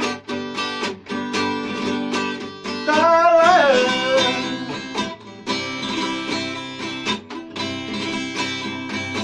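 A classical guitar and a steel-string acoustic guitar strummed together in a steady rhythm. About three seconds in, a voice sings a long note that slides downward.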